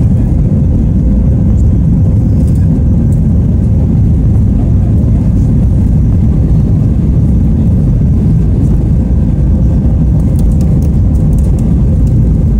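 Airbus A320 passenger-cabin noise in the climb after takeoff: the steady, loud, low rumble of the jet engines and rushing air, with a faint steady hum above it.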